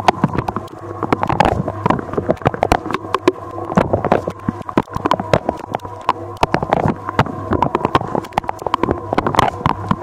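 Inside a Candy DUO 609 X dishwasher during the wash: the pump hums steadily while water from the spray arms splashes and patters irregularly against the tub walls and racks.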